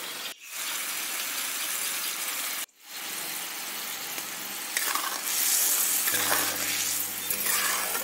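Spice paste (masala) sizzling in hot oil in a kadhai, stirred and scraped with a metal spatula, while it is fried down until the oil separates. The sound cuts out briefly twice and gets louder from about five seconds in.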